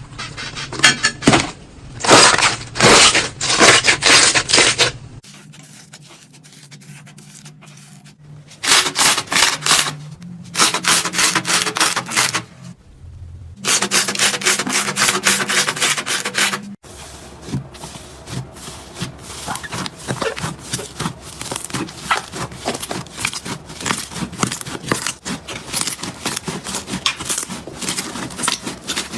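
Slime being squeezed, stretched and poked by hand, giving a dense crackle of small clicks and pops. It comes in several short clips cut together, some louder and some softer.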